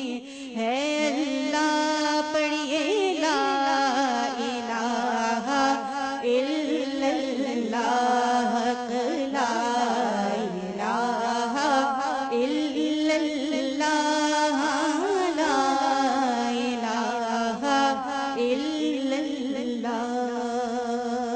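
A woman singing a hamd, the Islamic devotional hymn of praise, in long ornamented phrases that glide and waver in pitch over a steady low drone.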